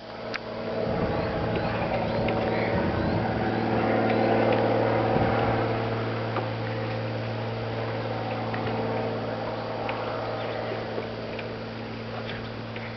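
A steady low motor hum with a few faint ticks over it.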